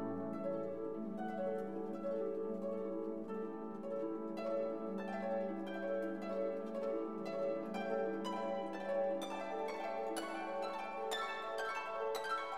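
Instrumental background music: plucked, harp-like notes over held lower notes, the plucked notes growing busier in the second half.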